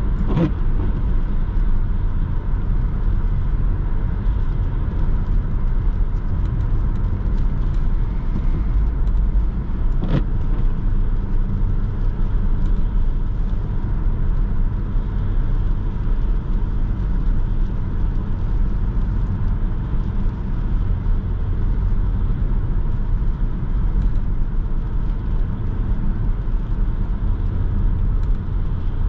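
Inside the cabin of a Renault Laguna II with a 1.8-litre 16-valve four-cylinder petrol engine cruising at steady speed: a constant low engine hum mixed with tyre and road noise. Two brief clicks, one near the start and one about ten seconds in.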